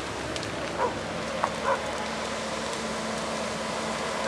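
Steady hiss with a few short distant calls about a second in, and a low steady hum that sets in about two seconds in.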